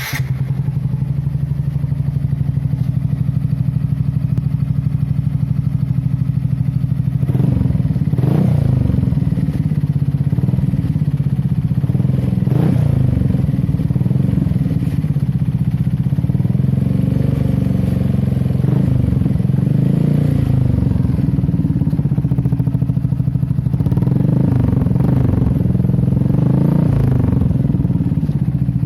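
Yamaha Mio i 125 scooter's single-cylinder four-stroke engine running through an aftermarket NOB 1 Titan dual-tip exhaust, idling steadily. From about seven seconds in, the throttle is blipped several times in short revs that drop back to idle.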